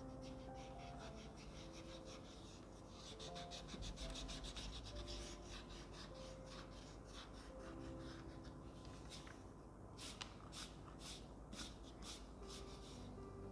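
Pencil scratching on workbook paper in quick short strokes as a child writes the letter R, faint, with soft background music underneath.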